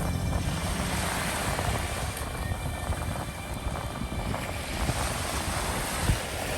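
Steady rushing of wind and sea waves on a rocky shore, with a faint knock near the end.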